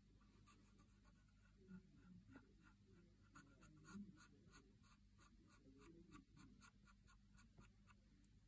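Paint marker tip scratching over a phone case in a quick, faint run of short back-and-forth strokes, about three or four a second, as an area is filled in with paint.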